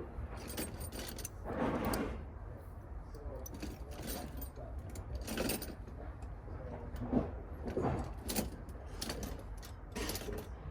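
Intermittent metal clinks and rattles, a few short strokes every second or two, as the door handle and lock parts of a van's side door are worked loose and handled.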